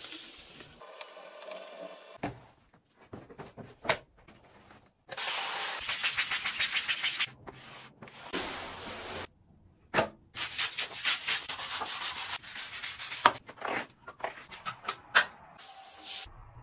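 Stiff bristle brush scrubbing a wet, foamy tiled shower floor in quick back-and-forth strokes, in several stretches, with scattered clicks and knocks in between.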